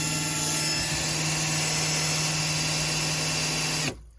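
Drill-driven water pump running steadily with a motor whine, drawing water from a bucket to fill a kettle, then switched off abruptly near the end.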